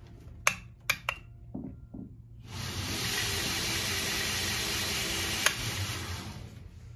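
Three quick clicks of the drive's three-way start switch being pushed, then the belt grinder running with a steady rushing whoosh for about four seconds. The whoosh dies away near the end as the motor winds down.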